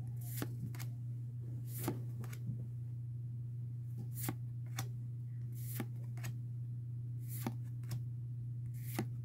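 Pokémon trading cards being slid and flipped one at a time from an opened booster pack, a series of short, sharp paper flicks at irregular intervals. A steady low hum runs underneath.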